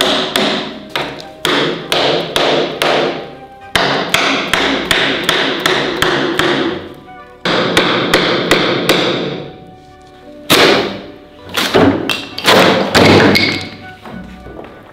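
Repeated sharp knocks and taps in quick runs of several strikes each, with brief pauses between runs, over background music.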